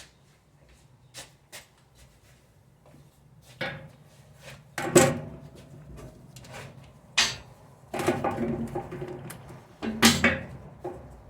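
Metal hand tools clanking and knocking on a car's brake parts during work to unbolt the rear brake caliper bracket. A few light clicks give way to several sharp clanks, the loudest about five and ten seconds in, with a short rattling stretch just before the last one.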